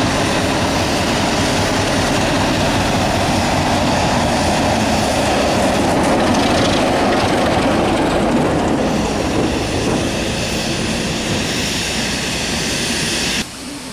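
British Rail Class 33 'Crompton' diesel locomotive drawing slowly along the platform, its Sulzer eight-cylinder diesel engine running. It is loudest as the cab comes level, about six to eight seconds in, and cuts off suddenly near the end.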